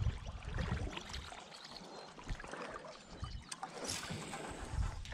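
Water sloshing and lapping around a float tube as it moves through the water, with scattered low knocks.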